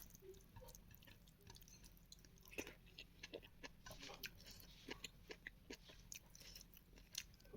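A person chewing food close to the microphone: quiet, scattered wet mouth clicks and smacks.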